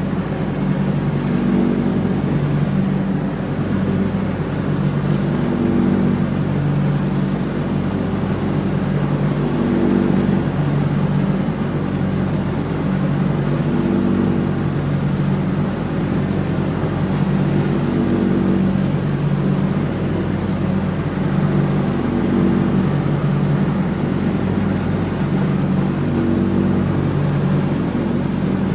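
John Deere X304 lawn tractor's engine running steadily while mowing, its tone swelling and easing every couple of seconds as the load shifts.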